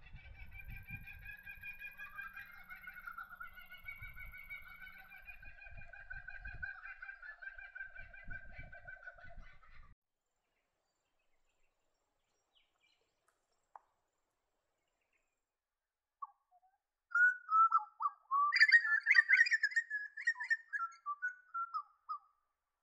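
Birdsong in two parts. First about ten seconds of continuous warbling song, placed as a grey butcherbird. Then, after a few seconds of silence, a louder run of varied calls, several sliding down in pitch, placed as a pied currawong.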